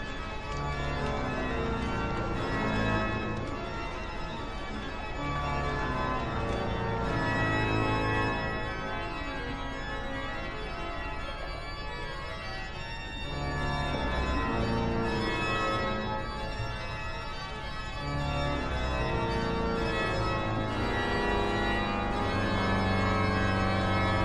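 Organ music: slow, sustained chords over deep bass notes, the chords changing every second or two and the sound swelling and easing in loudness.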